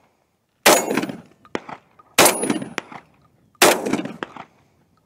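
Three shots from a Remington V3 TAC-13 12-gauge semi-automatic firearm fired one-handed, about a second and a half apart, each ringing briefly and followed by a fainter sharp knock.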